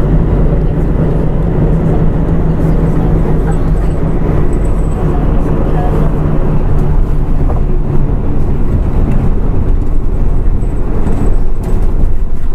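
Mitsubishi Fuso Aero Star (PJ-MP35JM) city bus running, its diesel engine a steady low drone. The engine note falls away somewhat about eight seconds in.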